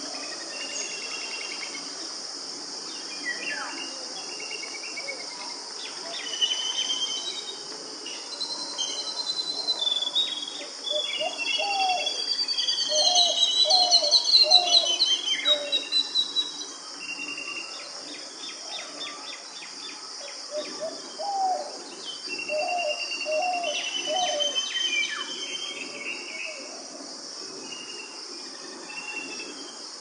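Rural evening nature ambience: a steady high chorus of crickets and other insects, with many birds calling and whistling over it. The birdsong is busiest and loudest about halfway through, with quick runs of notes.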